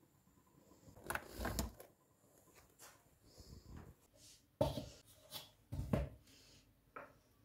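A plastic food-processor bowl being handled and tipped out over a wooden board with dough inside: a few separate dull knocks and clunks, the sharpest about four and a half and six seconds in.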